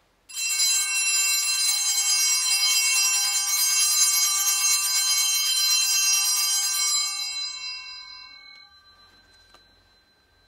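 Altar bells (Sanctus bells) ringing, a bright cluster of high tones kept going for about seven seconds and then left to fade away, marking the elevation of the host at the consecration.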